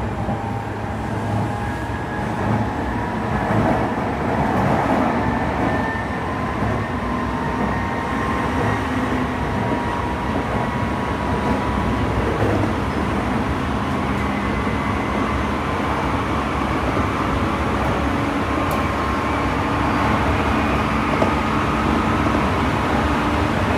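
Tsukuba Express TX-2000 series electric train running between stations, heard inside the passenger car: a steady low rumble of wheels on rail, with a faint steady whine above it.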